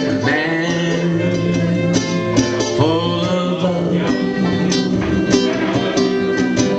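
Acoustic guitar and banjo playing a folk song together, the guitar strummed and the banjo picked.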